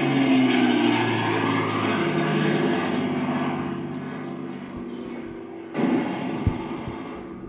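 Propeller aircraft drone passing overhead, a war sound effect: the engine note slides down in pitch and fades away. About six seconds in a new sound swells up suddenly, with a sharp thump just after.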